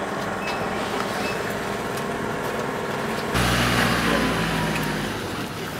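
Street traffic noise. From about halfway it gets suddenly louder, with a deep motor-vehicle engine rumble that fades away toward the end.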